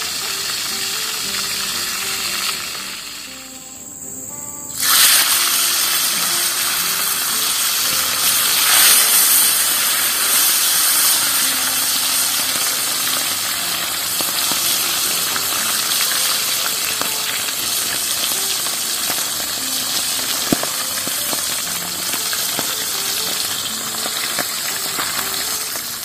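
Fish frying in hot oil in a wok: a steady, dense sizzle that dips for a couple of seconds about three seconds in, then comes back suddenly at full strength.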